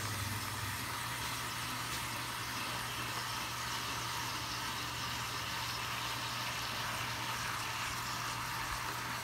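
A steady low hum under an even hiss, with no distinct knocks, crunches or rhythm.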